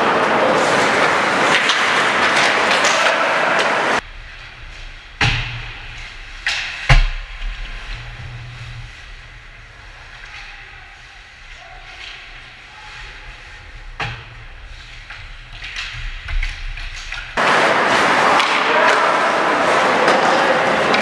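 Ice hockey rink sound: loud, dense noise cuts out abruptly about four seconds in to a quieter stretch of sharp knocks and thuds of pucks, sticks and bodies against the boards and ice. The loudest is a low thud about seven seconds in. Near the end the loud noise returns just as suddenly.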